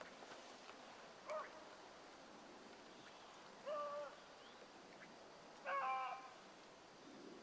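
Hunting dogs giving short, faint bays while running a rabbit out of sight: a brief one about a second in, then longer bays around four and six seconds in.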